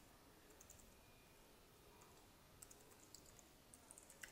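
Faint computer keyboard typing: short runs of quick keystrokes with pauses between them.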